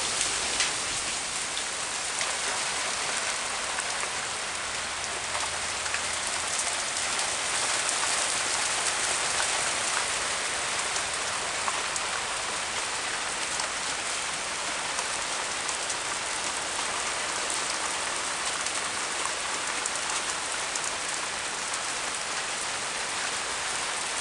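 Hailstorm: small hailstones and rain pelting down steadily, a dense hiss made up of countless tiny ticks.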